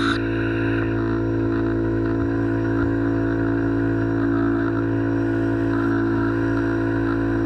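Electric pressure washer running steadily with its trigger held, the motor and pump giving a constant humming drone under the hiss of the high-pressure water jet.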